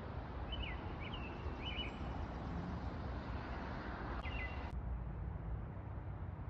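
Steady wind rumble with a small bird's short chirped calls, three in the first two seconds and another about four seconds in. A sharp click comes just before five seconds in, after which the sound turns duller.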